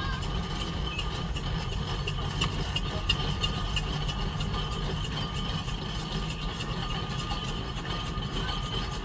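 A heavy engine running steadily at idle, a low rumble with faint rapid ticking over it.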